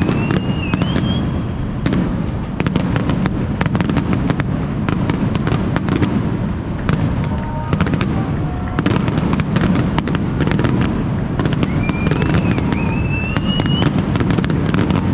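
Aerial fireworks going off in rapid succession: a dense run of bangs and crackles over a continuous rumble. A rising whistle is heard near the start and again about twelve seconds in.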